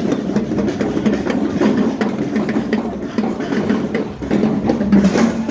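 Marching band drumline playing a cadence: rapid snare drum strokes over lower drums.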